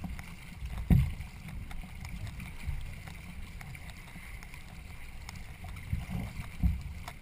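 Racing canoe out on the water: a steady low rumble with a few dull knocks, the loudest about a second in and two more near the end.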